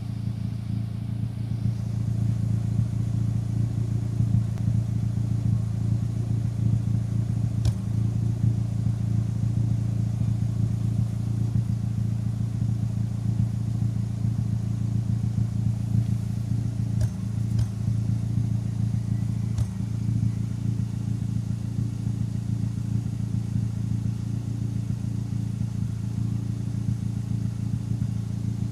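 Turbocharged Nissan Micra engine idling steadily when warm, its exhaust giving a few sharp random coughs at irregular intervals, two of them close together. The owner takes the coughs for misfires and suspects the larger SR20 injectors fitted with the turbo.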